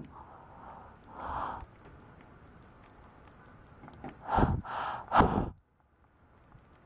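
A person breathing through a wide-open mouth. There is a faint breath about a second in, then two louder, breathy breaths in quick succession about four to five seconds in.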